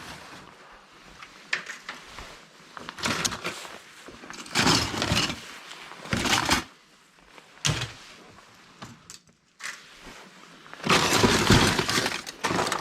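Scrapped laptop parts clattering as they are handled and tossed into sorting piles, in several separate bursts, the longest and busiest near the end.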